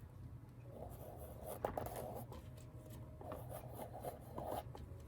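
Soft, intermittent rubbing and scraping as a tool is worked through wet acrylic paint on a canvas and wiped clean, with one sharp click about a second and a half in.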